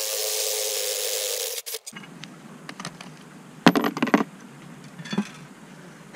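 Cordless drill running steadily on the bolts of a cast-aluminium jet-ski exhaust pipe, stopping just under two seconds in. Then metallic clinks and a short clatter as the pipe sections are handled and pulled apart.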